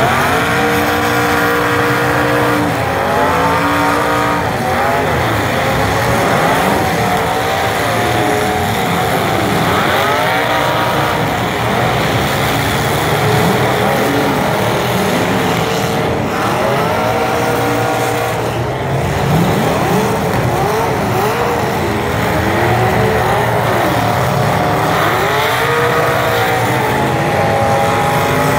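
Several demolition derby trucks' engines revving together, their overlapping pitches rising and falling without a break.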